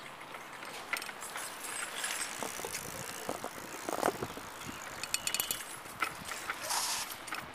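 Mongoose Ravage BMX bike being ridden, its tyres rolling over the ground with a steady rush of noise and scattered rattles and clicks. A quick run of clicks comes about five seconds in.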